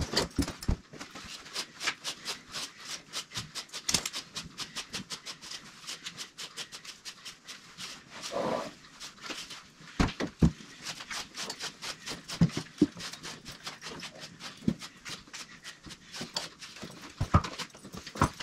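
Horses in a stable: a steady run of quick, sharp clicks and knocks, with one short breathy animal sound about eight seconds in.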